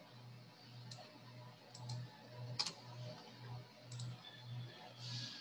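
A few faint, sharp computer mouse clicks, some in quick pairs, over a low hum that pulses about three times a second.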